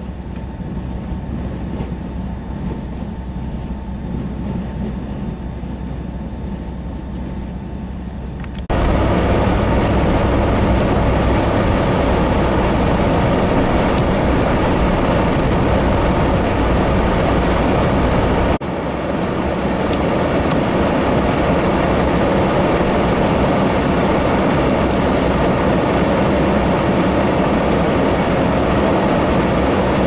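Strong blizzard wind blowing and buffeting, heard with low vehicle rumble from inside the cabin. The sound cuts between clips: a quieter low rumble at first, then a sudden jump to much louder rushing wind noise about nine seconds in, with another cut a little after eighteen seconds.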